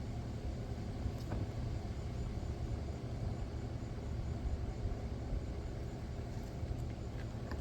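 Steady low outdoor rumble with no clear pitch, of the kind made by wind on the microphone or distant traffic ahead of a storm, with a few faint short chirps above it.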